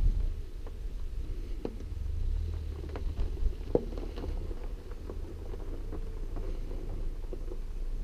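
Wind buffeting an outdoor microphone as a steady low rumble, with a few faint clicks about two and four seconds in.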